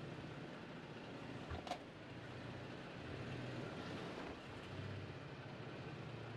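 Toyota Tacoma pickup's engine running with a steady low hum as the truck drives on a rocky off-road trail, with two short knocks about a second and a half in.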